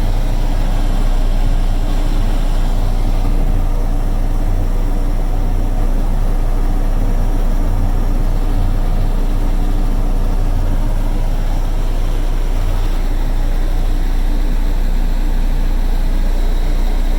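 Cat 307 excavator's diesel engine running steadily, heard from inside the cab as a constant low drone, with the cab heater fan blowing.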